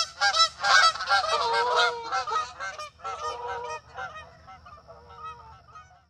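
A flock of geese honking, many overlapping calls, loud at first and fading away until they die out at the end.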